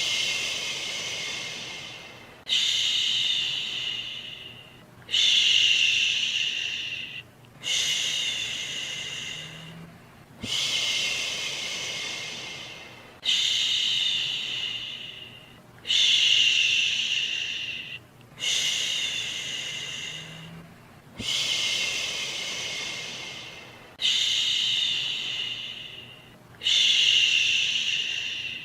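A person's 'shhhh' shushing sound, repeated about every two and a half to three seconds. Each shush starts sharply and trails off before the next one. This is a steady, rhythmic shushing used to soothe a baby to sleep.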